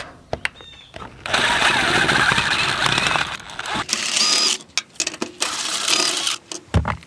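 Cordless DeWalt driver running as it drives screws into a plastic door frame: one run of about two seconds, then two shorter ones. A few light clicks of handling come before it.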